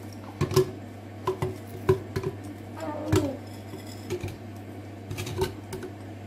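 Frozen strawberries dropped one at a time into a plastic smoothie-maker cup, an irregular series of hard little knocks and clicks, with a low steady hum underneath.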